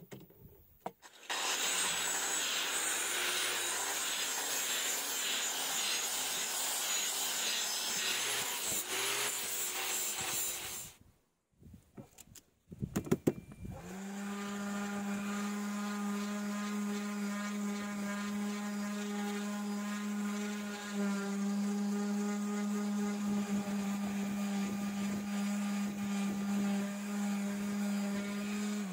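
Power sanding on the polished steel of a railroad-track anvil: for about ten seconds a sanding tool runs with a loud, even whirring rasp. After a short break and a click, an electric random orbital sander starts and runs with a steady hum over the sanding noise, winding down right at the end.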